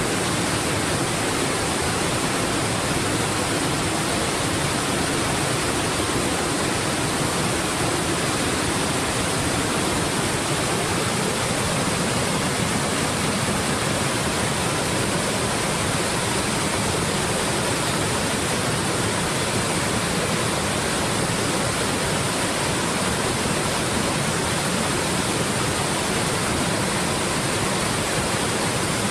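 Steady, even rush of a waterfall, Triple Falls, with water pouring over rock ledges.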